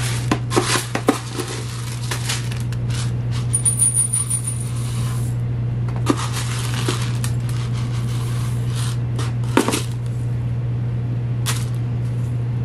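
Wheat berries poured and scooped into a glass measuring cup, the hard grains rattling and clicking against the glass in several bursts, over a steady low hum.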